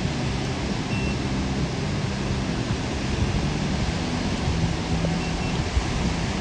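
Steady wind and surf noise on an open microphone, with a faint low hum underneath.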